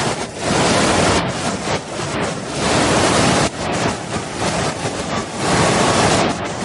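Waterfall's rushing water: a dense, loud hiss of falling water that swells and dips every second or two.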